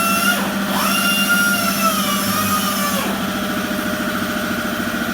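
Angle grinder fitted with a steel wire brush running with a steady high whine, stripping old paint off metal. Its pitch dips sharply about half a second in and drops again about three seconds in as the brush is pressed into the work.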